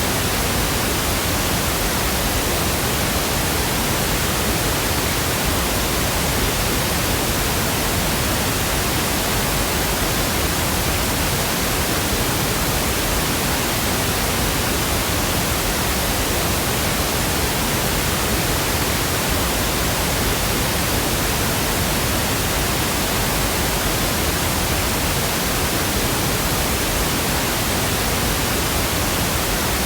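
Steady synthetic pink noise: an even, unchanging hiss across the whole range, with no other sound.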